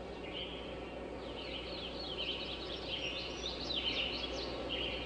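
Birds chirping: a busy tangle of short, quick, falling calls that starts about a second in, over a steady background hiss and a low hum.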